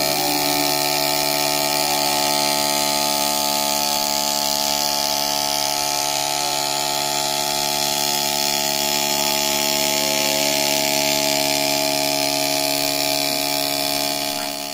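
Small battery-powered DC motor whirring steadily on top of a plastic-bottle scribble robot, shaking it so its marker-pen legs skitter over a whiteboard.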